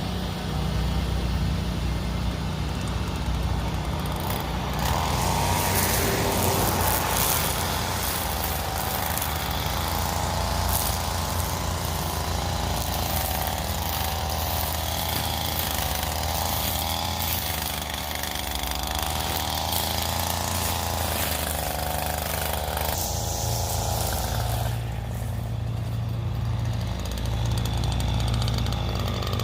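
Riding lawn mower engine running steadily, with a wavering higher whine through the middle stretch.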